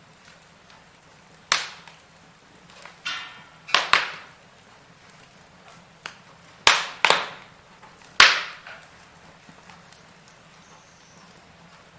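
Wood fire in a fireplace crackling, with about half a dozen sharp, irregular pops and a short hissing whistle about three seconds in.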